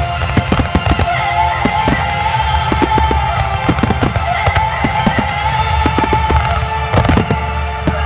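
Aerial firework shells bursting in quick, irregular succession, with many sharp bangs and crackles, over loud music with long held notes that accompanies the show.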